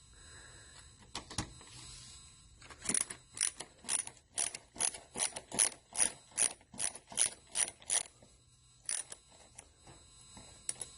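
Ratcheting driver with a Torx bit clicking in a steady rhythm, about two to three clicks a second for some five seconds, then a few stray clicks, as it backs out a case screw.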